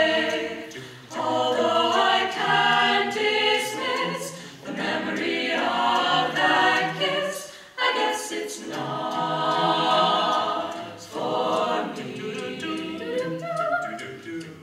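Mixed-voice a cappella group singing in close harmony, without instruments, in several phrases with short breaks between them.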